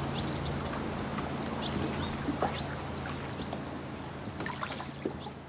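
Water lapping and gurgling against a boat dock, full of small plinks and splashes, with a brief high bird chirp about a second in and a steady low hum underneath. The sound fades down over the last couple of seconds.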